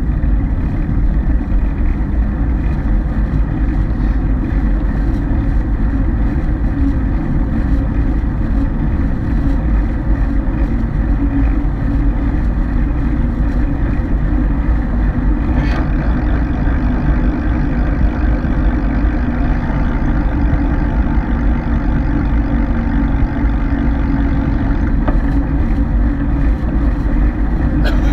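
Steady low rumbling wind noise buffeting the camera microphone while riding along a road, with two faint clicks, one about halfway through and one near the end.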